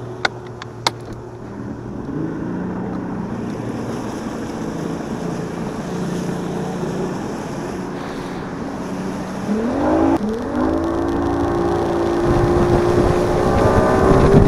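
Bass boat's outboard motor running at low speed with wind and water noise, then throttled up about ten seconds in, its pitch climbing and then holding high and louder as the boat speeds up. Two sharp clicks come near the start.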